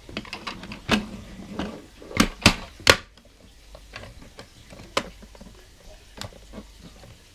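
Hard plastic parts of a Transformers Rescue Bots Heatwave toy clicking and knocking as it is folded from robot into fire truck. There is a cluster of sharper clacks about two to three seconds in, and a single knock near five seconds.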